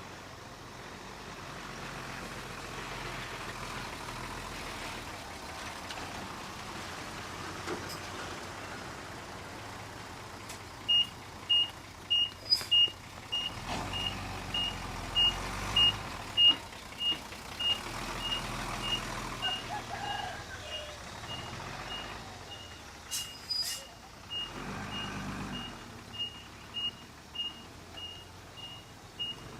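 Heavy earth-moving machine running with a low rumble. From about a third of the way in, its reversing alarm beeps steadily at about one and a half beeps a second until the end.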